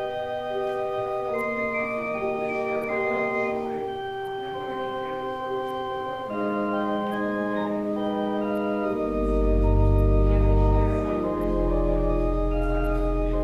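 Organ playing slow, sustained chords, with deep bass pedal notes coming in about nine seconds in.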